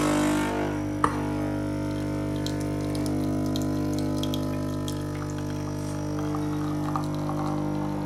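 Sage Nespresso Creatista Plus coffee machine running with a loud, steady droning buzz. A strong hiss at the start dies away within the first half second, and there is a click about a second in.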